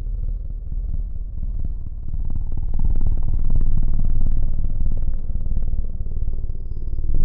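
A strange low rumble with a fast fluttering pulse to it, swelling louder about two seconds in and easing a little near the end.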